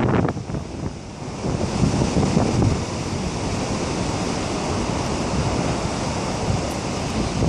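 Typhoon-driven storm surf at a concrete caisson breakwater, with strong wind buffeting the microphone. A wave surges loudly right at the start, then a steady roar of surf and wind from about two seconds in.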